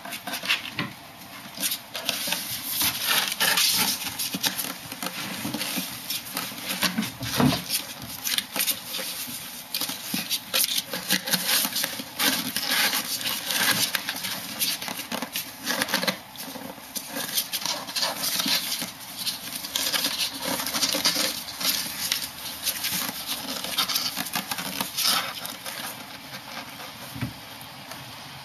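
Ferrets and a kitten scuffling in and around a cardboard box: a dense run of scratching and rustling, claws scrabbling on cardboard and a wooden floor, easing off near the end.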